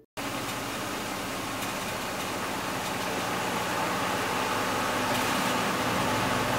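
Steady outdoor night ambience: an even rushing hiss with a faint low hum, slowly swelling.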